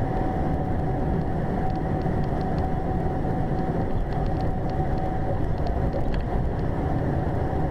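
Steady road and engine noise heard from inside a vehicle driving at highway speed, with a thin steady whine running through it.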